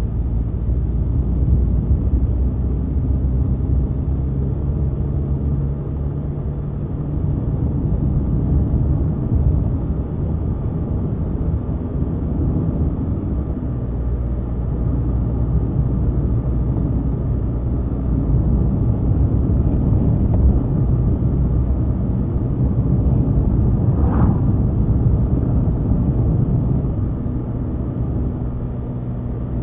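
Car engine and tyre noise heard from inside the cabin while driving: a steady low drone whose engine hum shifts in pitch now and then. One brief sharper sound late on.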